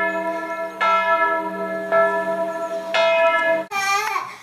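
Church bells ringing, a new stroke about once a second, each one ringing on. About three-quarters of the way through they cut off abruptly and a baby's babbling takes over.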